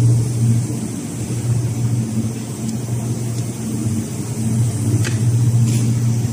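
Steady low machine hum at a fixed pitch, swelling and dipping slightly, with two faint light clicks about five seconds in.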